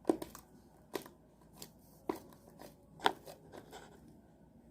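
Slime being squeezed and worked by hand, giving sharp clicking pops about once a second with fainter crackles between.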